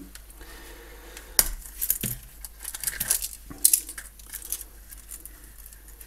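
Steel chain handcuffs clinking and clicking as they are handled, a scattered series of sharp metallic clinks with light rattling in between.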